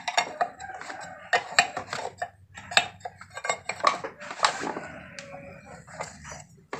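Irregular metal clinks and knocks as tools work a worn ball joint loose from its mount after its rivets have been ground off.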